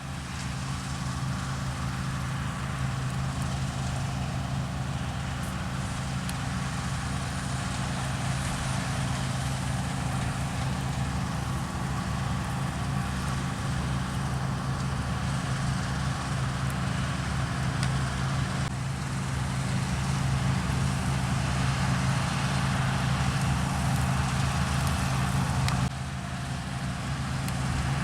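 Diesel engines of harvest machinery, combine harvesters and grain-carting tractors, running steadily under load. Near the end the level drops abruptly, then builds again.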